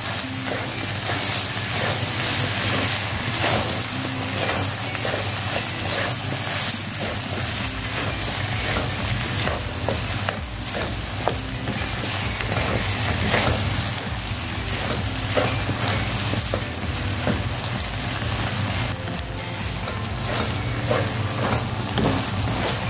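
Diced chicken gizzard and liver with vegetables sizzling in a nonstick wok, with a spoon of butter melting in. A wooden spatula stirs and scrapes through them in many short scrapes and taps, over a steady low hum.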